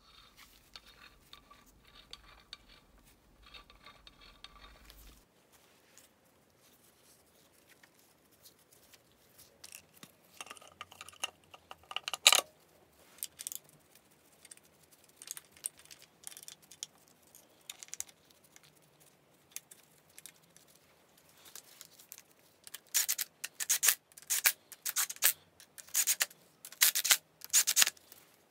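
Hand tools and metal engine parts being handled at a workbench: scattered sharp clicks and scrapes, with the loudest single click about twelve seconds in. Quick runs of clicking come in the last five seconds.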